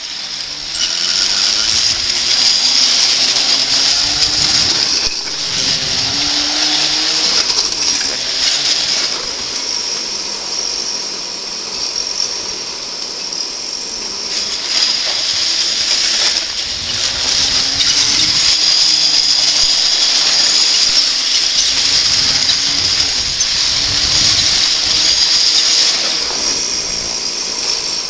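Roller slide's rollers spinning and rattling under a rider going down it: a continuous whirring clatter, with a hum that rises and falls in pitch as the speed changes.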